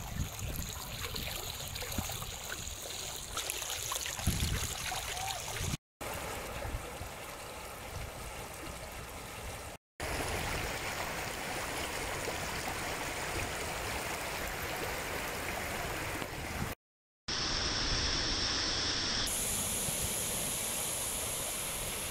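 Muddy flash-flood water rushing and churning through a wadi after heavy rain, a steady rush broken by a few short silent gaps where clips are joined.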